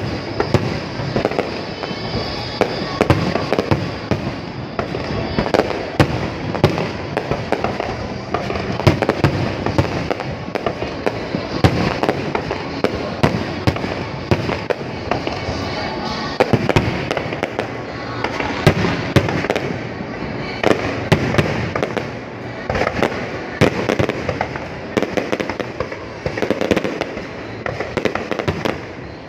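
Fireworks display going off without a break: a dense, rapid run of bangs and crackles.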